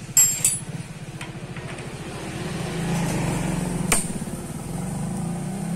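A motorcycle engine idling steadily, its pitch rising a little near the end. Light metal clinks of a wrench come just after the start, and a single sharp metallic click comes about four seconds in.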